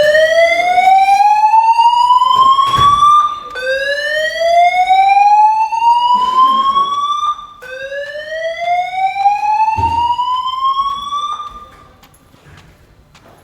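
Building fire alarm evacuation system sounding its slow whoop tone: three rising sweeps, each about four seconds long, climbing from low to high and restarting, the signal to evacuate the building. The tone fades out near the end.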